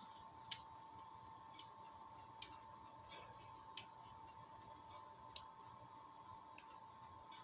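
Faint, scattered clicks and taps of small parts and tools being handled while a belt guide pulley is fitted to a model helicopter's tail, about seven in all, over a steady faint high whine.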